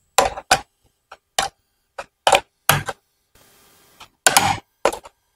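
Flat stamped steel spanner clicking against a nut and the metal steering rod as it is seated on the nut and turned to lock it tight: a dozen or so sharp, irregular clicks, some in quick pairs.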